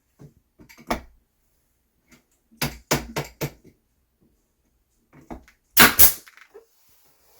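Pneumatic brad nailer firing brad nails into wooden window trim, sharp snapping shots: one about a second in, a quick run of four a couple of seconds later, and the two loudest near the end.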